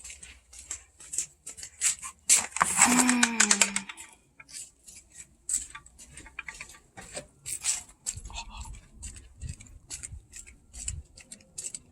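Irregular clicks and small rattles of hand tools and parts being handled during transmission switch work. About two and a half seconds in, a short voice-like sound, falling in pitch, is the loudest thing.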